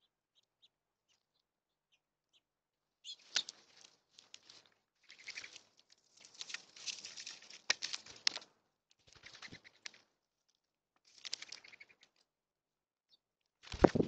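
Wings of mourning doves and small backyard birds flapping in a run of short flurries, starting about three seconds in, with sharp clicks mixed in. A loud knock comes just before the end.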